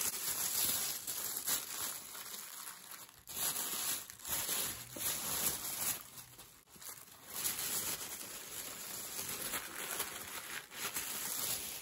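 Thin tissue wrapping paper crinkling and rustling as it is pulled off a jewellery tray and crumpled in the hand, in several bouts with short pauses between.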